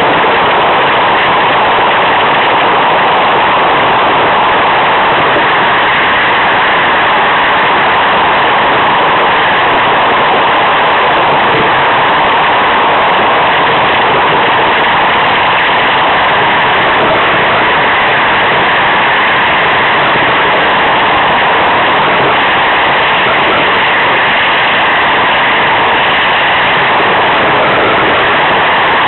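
An iceboat sailing over lake ice: a loud, steady rushing noise from the runners sliding on the ice and the wind over the boat, with no pauses or changes.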